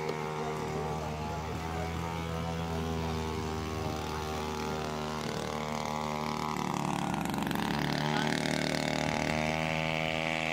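Small boat outboard engine running steadily at a constant speed. Its sound sweeps and its pitch dips between about 7 and 9 seconds, then it steadies again.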